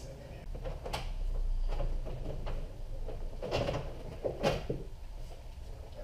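Plastic interior trim panel of a 3rd gen Toyota 4Runner tailgate being pushed up and worked off the door: plastic knocking and rubbing, with a sharp knock about a second in and a cluster of knocks midway through.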